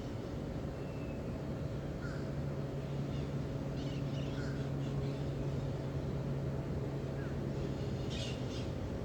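A steady low hum over a broad rumbling background, with short bird calls about two, four and eight seconds in.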